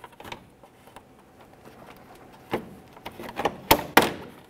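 Plastic tabs along the bottom of a 2013 Toyota Camry's front grille snapping loose from the top of the bumper as the grille is pulled outward: a few sharp clicks and snaps in the second half, the loudest two close together near the end.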